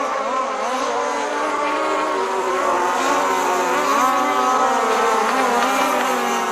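Motors of radio-controlled model boats running on the water, several at once, their pitch rising and falling as the throttles change.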